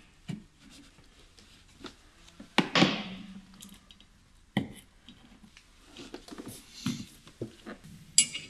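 Scattered clicks and knocks of hand tools on a car's wiper arm and plastic scuttle panel: a plastic nut cover cap prised off with a screwdriver, then a socket wrench fitted onto the wiper arm nut. The loudest knock comes about two and a half seconds in.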